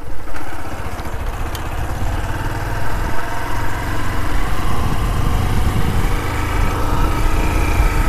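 Honda motorcycle engine running steadily as the bike rides along a dirt road.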